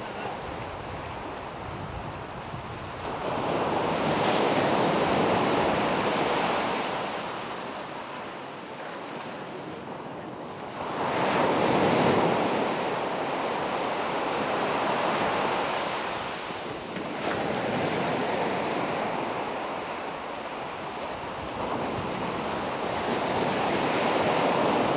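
Ocean surf breaking on a beach, a rushing wash that swells and fades about four times, with wind noise on the microphone.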